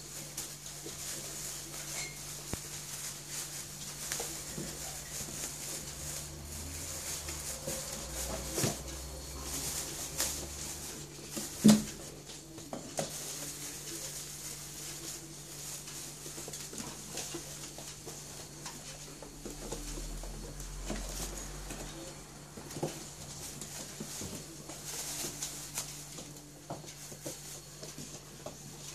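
Golden retriever puppies scrabbling at and tugging a plastic bag on a hard floor: paws pattering and clicking, plastic rustling, with one sharp knock about twelve seconds in. A steady low hum runs underneath.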